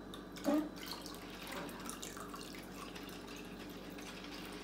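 Water poured from a glass measuring cup into a saucepan already holding water, trickling and splashing, with a brief louder sound about half a second in.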